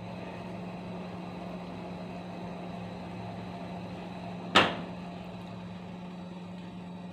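Steady mechanical hum with a faint hiss, broken once by a sharp knock about four and a half seconds in.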